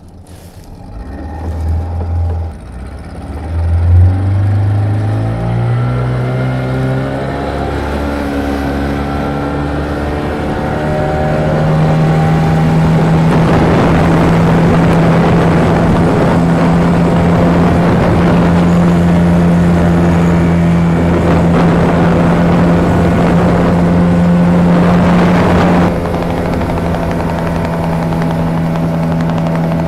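Speedboat engine revving up as the boat pulls away, its pitch climbing steadily over the first dozen seconds, then running at a steady high speed with water and wind rushing past. About four seconds before the end the rushing drops away and the engine eases slightly.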